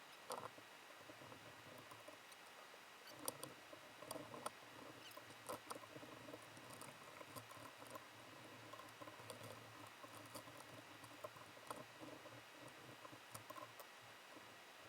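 Near silence with faint, scattered small clicks, taps and scratching, like parts being handled at a workbench.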